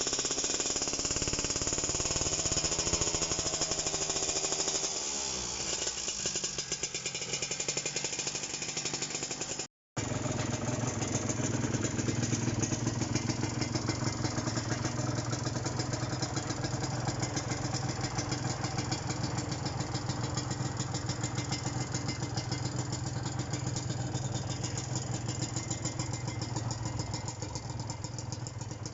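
Kawasaki AR125R's two-stroke single-cylinder engine running with revs rising and falling, then, after a brief cut about ten seconds in, idling steadily.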